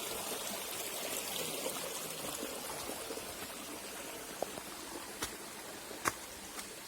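Water of a small stream trickling and flowing steadily, slowly growing fainter. A few sharp clicks about four, five and six seconds in.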